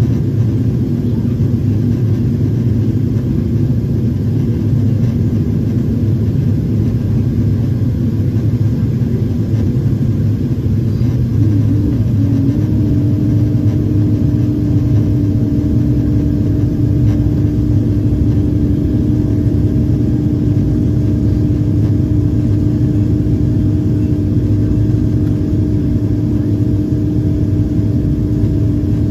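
Boeing 767-400 cabin noise heard from a window seat over the wing during descent: a steady roar of engines and airflow. About twelve seconds in, a steady droning tone joins it and holds.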